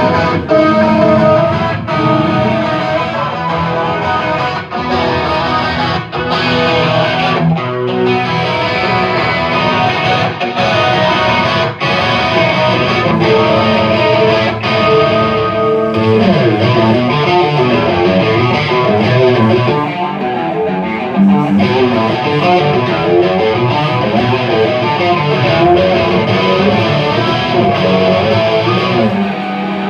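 Rock band playing live, with distorted electric guitar to the fore.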